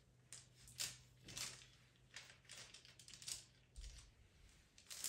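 Pastel pencil scratching on pastel mat paper in short, quiet, irregular strokes.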